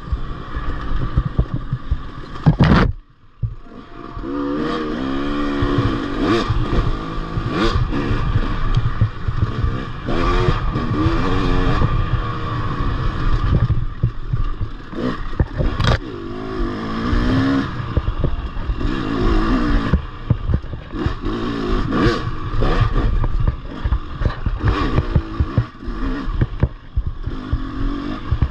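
Off-road motorcycle engine revving up and down over and over, with rattling and knocks from the bike on rough ground. About three seconds in the engine sound drops away briefly, then picks up again.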